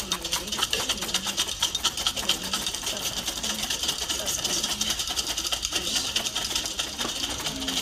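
Several felting needles stabbing repeatedly into wool roving on foam pads, many rapid overlapping ticks at once, with students' voices faint underneath.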